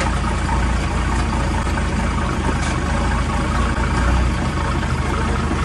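Off-road vehicle's engine running steadily, a constant low hum with a noisy rush over it.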